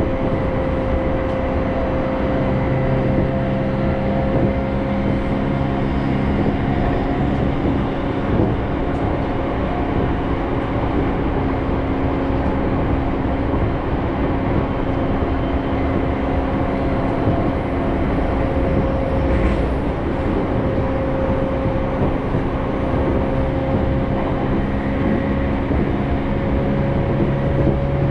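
Electric commuter train running, heard from inside the carriage: a steady rumble of wheels on the rails under a steady motor hum that rises slightly in pitch near the end.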